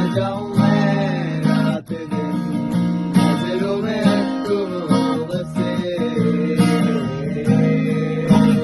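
Music: a song with strummed acoustic guitar chords under a sung melody.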